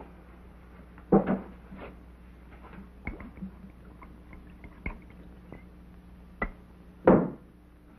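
A drink poured into a glass, with a few sharp clicks and knocks and two louder short thuds, about a second in and near the end, over a steady low hum.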